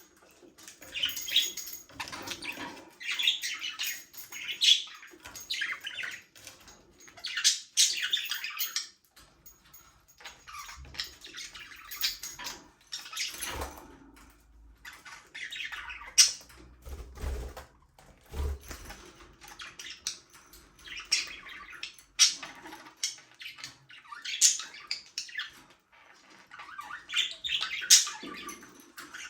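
Budgerigars chirping and chattering in repeated short bursts, with some low thuds around the middle.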